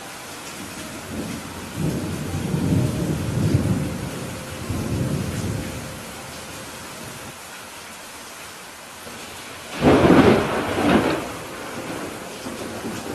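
Heavy rain falling steadily with thunder: a low rolling rumble in the first half, then a sharper, louder thunderclap about ten seconds in that rumbles for a second or so.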